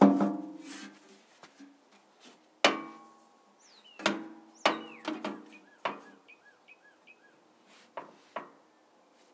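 Welded sheet-steel battery box clanking against the mower's steel frame as it is set and shifted into place: about four sharp metallic clanks that ring on briefly, with lighter knocks between. A bird chirps a quick series of five or so notes midway.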